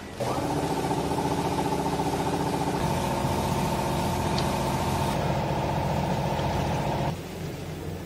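Vertical clothes baler's hydraulic pump motor running with a steady, even hum-whine. It starts suddenly and cuts off about seven seconds in.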